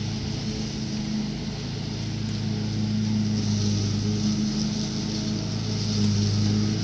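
Riding lawn mower engine running steadily with an even, low hum while mowing tall grass and weeds.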